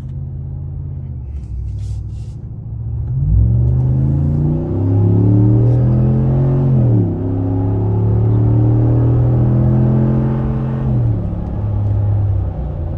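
2022 Ram 1500's 5.7 HEMI V8, fitted with a VaraRam intake and a Total Flow 6-inch exhaust, accelerating on a drive. About three seconds in it gets louder and the pitch climbs, then drops sharply about seven seconds in. It runs steady until about eleven seconds in, then eases off. It is a little louder with the new intake: "definitely hear a little bit more engine sound."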